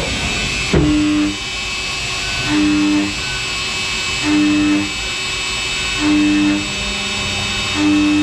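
A CNC lathe running with its door cracked open: a steady machine hum and hiss, and a short knock about a second in. A low, pitched drone then comes in regular pulses about every second and three-quarters as the live-tool end mill cuts the hex flats on the part one at a time.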